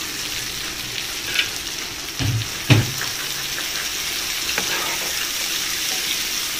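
Sliced onions and shallots sizzling in hot oil in a pan while they are stirred with a spatula for sautéing. Two knocks of the spatula against the pan come between two and three seconds in.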